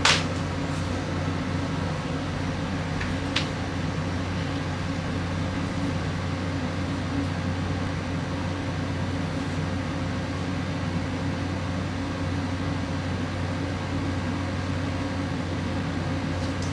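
A steady low machine hum, like a fan or air-conditioning unit, with a sharp click at the very start and a fainter click about three and a half seconds in.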